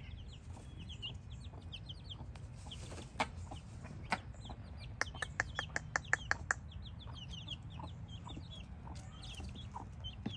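Young Brahma chicks peeping: many short, high, falling cheeps. About five seconds in comes a quick run of about nine sharp clicks, roughly five a second.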